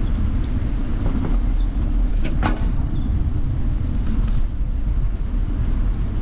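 Steady low rumble of wind buffeting the microphone and bicycle tyres rolling on the cycle lane while riding, with a short high squeak about two seconds in and a few faint high chirps.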